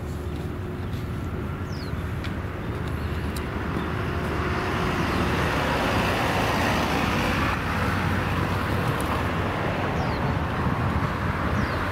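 Road traffic: a steady hum of cars, swelling as vehicles pass about halfway through, over a low rumble.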